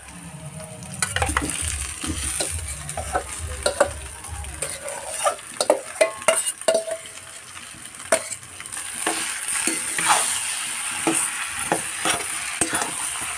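Mashed boiled potato tipped from a steel bowl into a metal kadai of fried onion, with a run of dull thuds in the first few seconds. Then a metal spatula scrapes and clicks against the kadai as the mixture is stirred, over a light frying sizzle.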